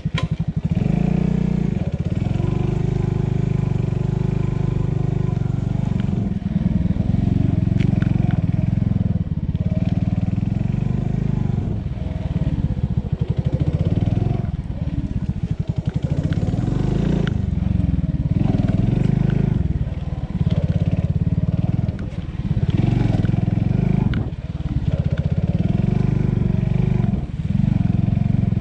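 125cc pit bike's single-cylinder engine running under load on a rough trail, its pitch rising and falling again and again as the throttle is opened and closed, with brief drops as the rider backs off.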